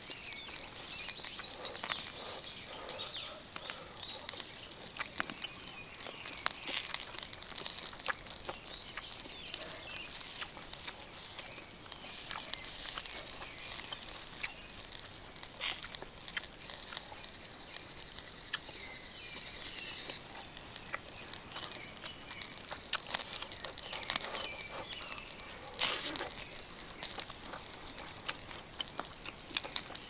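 Beef sizzling and crackling on a charcoal grill, with many sharp clicks and pops. Faint bird chirps sound a few times.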